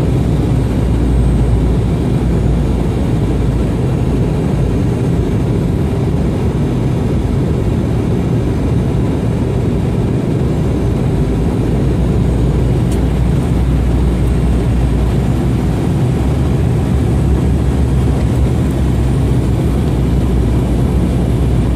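Steady cabin noise inside an Embraer 195 airliner on its approach to land: the constant deep rumble and rush of its turbofan engines and airflow, unchanging throughout.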